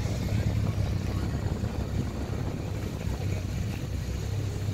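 Car engines running at low revs as cars drive slowly past, a steady low drone.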